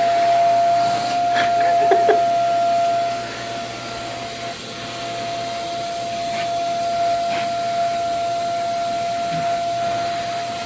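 Household vacuum cleaner running steadily with a constant whine, louder for the first three seconds and then somewhat quieter, with a few brief knocks about two seconds in.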